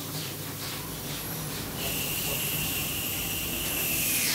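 A steady hiss, joined about halfway by a high whistling tone that holds and then dips slightly near the end.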